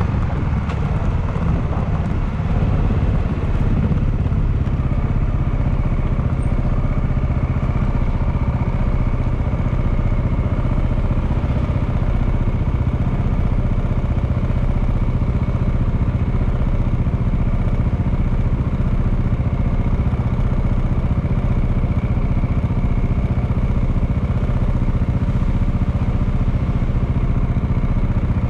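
Honda Clubman motorcycle's single-cylinder engine running at a steady speed.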